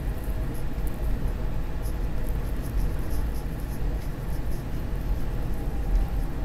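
Steady low rumble inside a SEPTA Market-Frankford Line subway car as the train runs.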